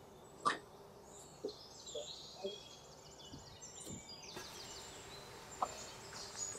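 Kitchen knife chopping fresh herbs on a wooden cutting board: one sharp chop about half a second in, then a few softer knocks. Small birds chirp in the background.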